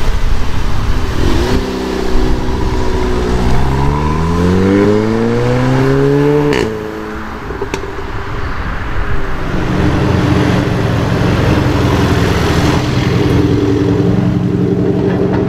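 Volkswagen Golf 7 R's turbocharged four-cylinder engine accelerating hard, its note climbing steadily for a few seconds and then cutting off sharply, followed by a single short crack. Later a second Golf 7's engine runs at a steady note as the car rolls slowly.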